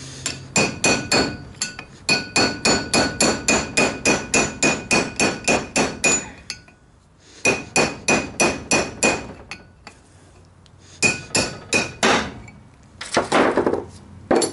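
Hammer striking a 3/8-inch socket extension used as a drift on the outer bearing race of a Ford Ranger front hub and rotor, driving the race out. The hammer strikes are quick, ringing metal-on-metal taps, about four a second, in several runs with short pauses between.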